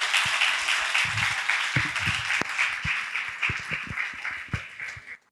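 Audience applauding: dense clapping from many hands, thinning toward the end and cutting off abruptly.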